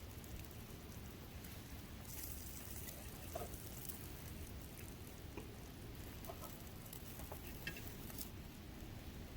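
Faint sizzling and crackling of skewers grilling over a wood fire pit, with scattered small ticks and a couple of brief louder hisses.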